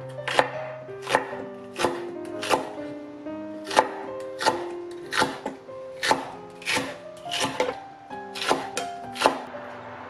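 Chef's knife slicing a Korean green onion on a wooden cutting board: about fifteen sharp knocks of the blade against the board, irregularly spaced, with background music underneath.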